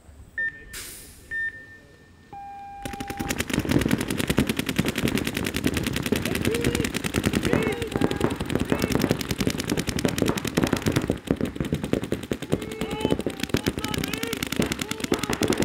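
Two short high electronic beeps and a longer lower beep, the start signal for a point. Then several paintball markers open up in rapid, sustained fire, with players shouting over it.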